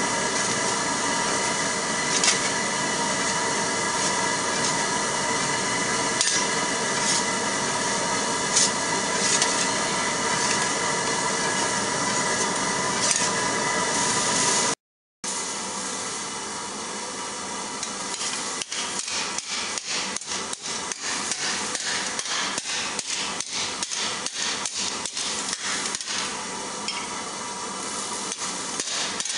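A steady hum with a few faint clicks while a steel plate is bent by hand over an anvil horn. After a brief dropout, a hammer strikes a steel plate over a stake anvil in fast, regular blows, about three or four a second, shaping a gauntlet plate.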